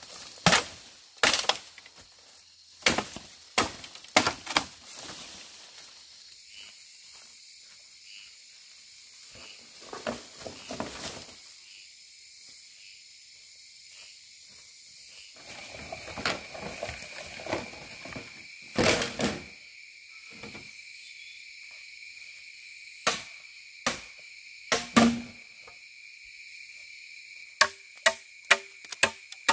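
Machete blows chopping green bamboo: several sharp strikes early on, a few spread through the middle, then a quick run of about two or three blows a second near the end. Rustling in dry leaf litter between the blows, over a steady high chirring of insects.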